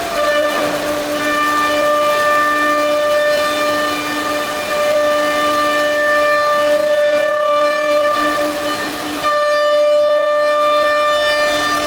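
Nesting CNC router's spindle running with a steady, loud high-pitched whine, the pitch holding level and briefly dropping out a couple of times.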